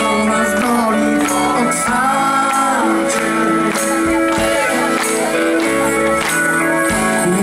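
Live band playing: keyboard, electric bass and drums, with a male voice singing over them and a tambourine jingling.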